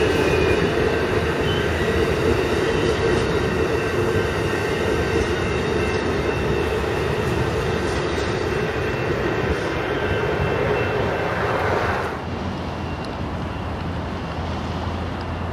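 Amtrak Superliner passenger cars rolling past on street-running track: steady wheel-and-rail noise with a faint high squeal of wheels on the rails. About twelve seconds in, the sound cuts suddenly to a quieter, lower steady rumble.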